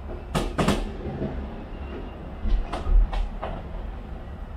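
Fireworks bursting over a low rumble: two sharp bangs within the first second, then a quick run of about five more past the middle.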